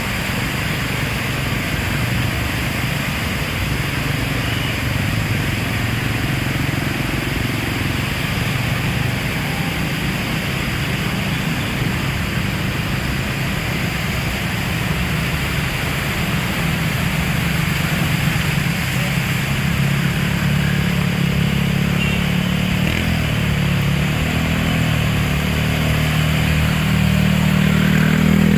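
Steady heavy rain hiss, with a low engine drone underneath that grows louder toward the end.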